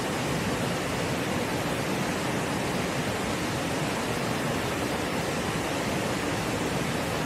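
Creek water rushing steadily over rocks in small whitewater cascades.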